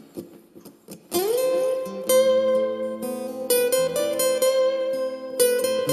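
Steel-string acoustic guitar lead line: after a few faint finger clicks, a note slides up the neck about a second in and is held with a slight vibrato. A guitar backing track of chords comes in underneath it shortly after.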